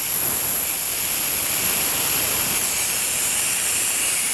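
Compressed air hissing steadily out of an Air Venturi Avenger PCP air rifle's air cylinder through its loosened bleed screw: the cylinder being degassed. A loud, steady, high-pitched hiss.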